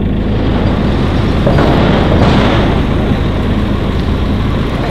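Loud, steady low rumble of idling diesel vehicle engines, swelling briefly about two seconds in.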